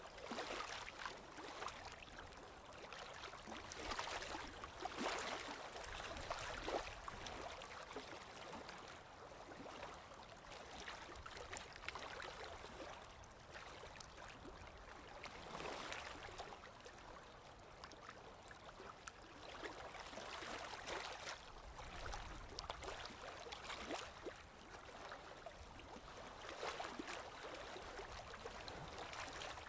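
Running water, a stream gurgling and trickling steadily, its rush swelling and easing every few seconds.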